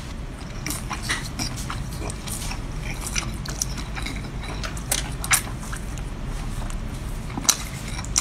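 Close-up chewing of spicy sauced octopus, with irregular mouth clicks and smacks.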